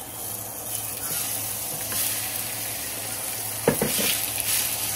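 Raw seasoned chicken breast cubes sizzling as they hit hot olive oil in a skillet, the sizzle growing as more chicken goes in. A few quick knocks of the spatula against the pan a little before the end.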